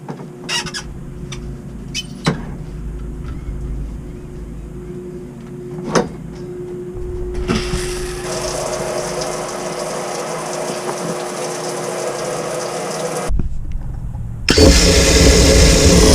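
Water spraying from a freshly cleaned outdoor shower head, a steady hiss starting about halfway and louder near the end, after a few knocks and clicks.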